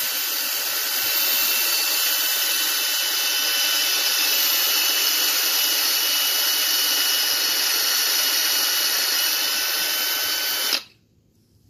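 Ryobi cordless drill running steadily with a 1/8-inch bit boring into the end of a half-inch wooden dowel. The motor's whine holds one pitch throughout, then cuts off abruptly near the end.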